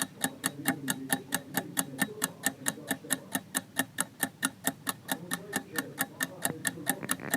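Ticking clock countdown sound effect, a steady run of sharp ticks at about four a second.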